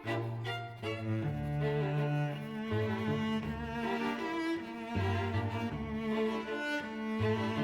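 Background music: bowed strings with a low cello and bass line moving from note to note.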